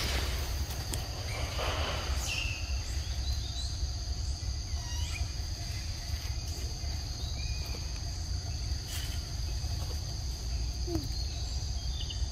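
Forest ambience: a steady, high-pitched insect drone under a constant low rumble, with a few short chirps scattered through.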